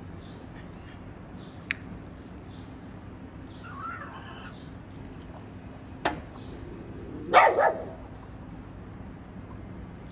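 A small dog barks a short double bark about seven seconds in. There is a weaker, higher call near the four-second mark and two sharp clicks before the bark.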